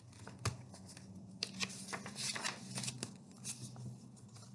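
Loose sheets of printer paper rustling and flicking as pages are turned by hand, in irregular crisp rustles that are busiest in the middle.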